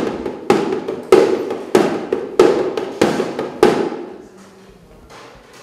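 Hand-held frame drum beaten at a steady pulse, seven strokes a little under two a second, each ringing briefly; the beating stops about four seconds in.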